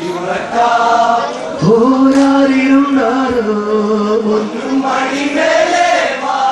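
Men's group singing an Onamkali folk song in Malayalam in chorus. About 1.7 s in, one voice swoops up into a long held note, steps down a little, then the group carries on.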